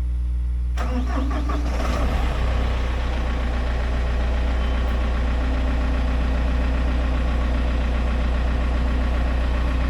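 A tractor engine cranks and starts about a second in, then settles into a steady idle. A low engine hum is already running under it.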